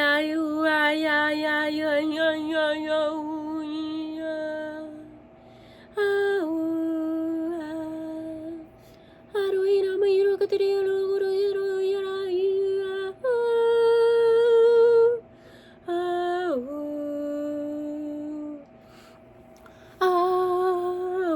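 A woman's wordless vocal toning for sound healing: long held, humming-like notes of a few seconds each with a slight waver, separated by short pauses, with one higher note about two-thirds through and a note that slides downward a little after. A faint steady tone sounds beneath the voice throughout.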